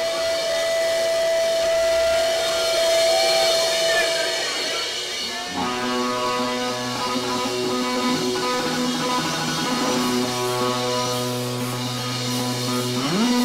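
Electric guitars of a surf-rock band playing live: a long steady high note is held for the first few seconds, then about five and a half seconds in a low chord starts and rings on, with a slide upward in pitch near the end.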